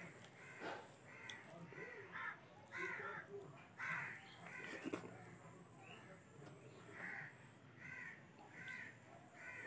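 A bird calling again and again, short calls roughly once a second. Softer sounds of rice and curry being mixed by hand and eaten lie underneath, with a few sharp clicks.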